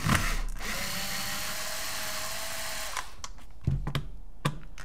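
Electric screwdriver running steadily for about three seconds, backing screws out of the pistol's shell, then a few clicks of handling.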